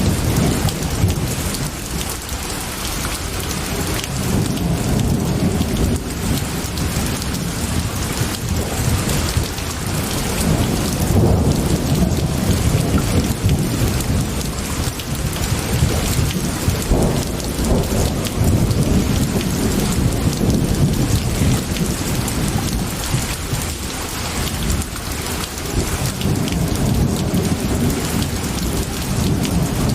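Steady heavy rain falling on glass, with a low, rolling rumble of thunder underneath.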